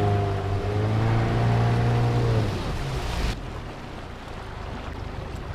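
Motorboat engine running steadily, then falling in pitch about two and a half seconds in as it is throttled back. An even rush of wind and water noise remains afterwards.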